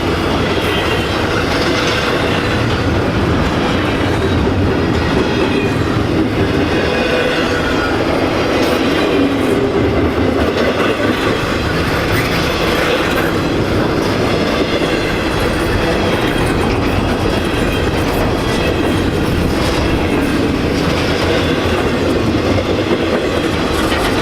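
Intermodal freight train cars rolling past: a steady rumble of steel wheels on rail with a clickety-clack over the joints, and a faint wavering squeal from the wheels.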